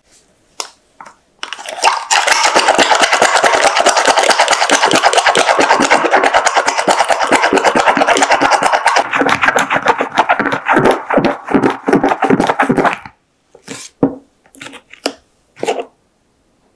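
Egg whites and sugar being whipped by hand with a whisk stick through the lid of a plastic cup: a long run of fast rattling strokes that turn slower and heavier about two thirds of the way through as the meringue stiffens to peaks, stopping abruptly, followed by a few light clicks of the stick against the cup.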